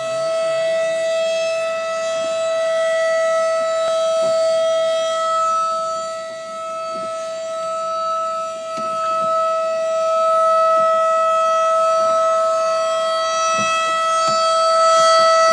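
Outdoor tornado warning siren sounding a steady, unwavering tone for a test, very loud from close by. Its loudness dips and swells slowly while the pitch holds.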